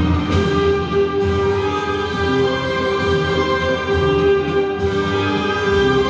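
Orchestral instrumental music with held notes over a beat that falls roughly once a second.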